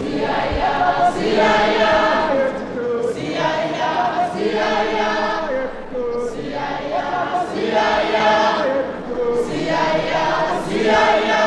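Crowd of voices, mostly women's, singing together unaccompanied in harmony: a rhythmic song in short repeated phrases.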